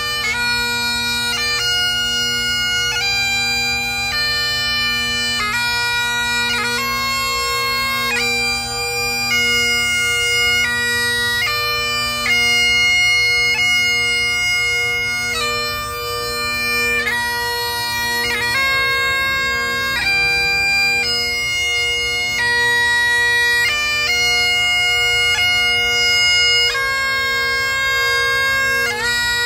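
Great Highland bagpipe playing a slow piobaireachd: the steady drones sound under a chanter melody of long held notes, with quick grace notes cutting between them.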